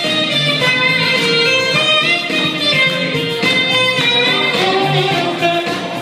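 Lively jazzy music led by a saxophone playing a melody.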